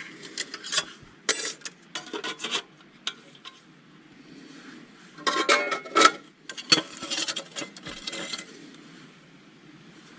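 Irregular scraping and rubbing strokes with a few sharp clicks, coming in separate clusters and busiest about halfway through.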